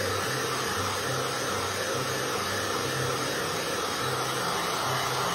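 Steady rushing noise of a running electric appliance's motor and blown air.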